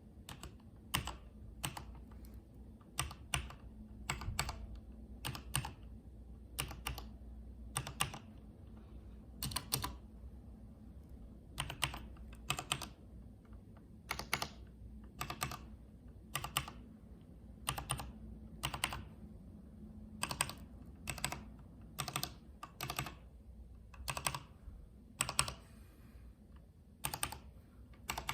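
Typing on a Corsair K68 mechanical keyboard fitted with HyperX double-shot PBT pudding keycaps: separate key clacks at an uneven, unhurried pace of about one or two a second.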